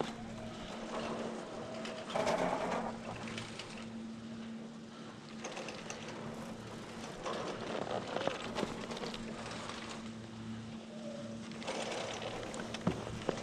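Skis hissing and scraping over groomed snow through a series of turns, the swish swelling every couple of seconds.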